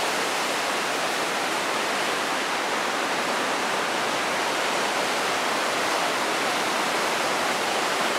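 Glacier-fed mountain river rushing through whitewater rapids over boulders: a steady, even noise of fast water.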